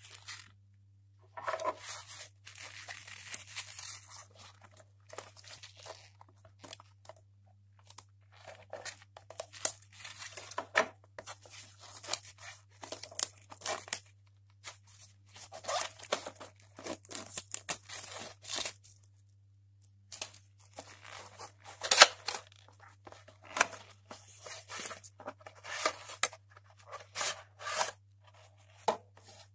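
Cardboard and paper packaging of a pair of true wireless earbuds being handled and opened: irregular rustling, tearing, scraping and sharp clicks as the box is turned over and its inner sleeve and plastic tray are slid out, with one louder snap about two-thirds of the way through. A steady low hum runs underneath.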